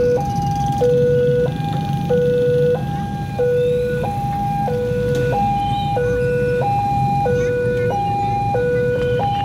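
Railway level-crossing warning alarm sounding: an electronic two-tone signal that switches between a low and a high note about every two-thirds of a second, warning that a train is approaching and the barriers are down. A steady low rumble of waiting traffic runs underneath.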